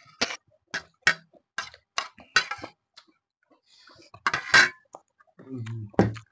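Cutlery clinking against a plate in a string of short, sharp clicks, the loudest pair about four seconds in, with a brief low hum from a voice just before the end.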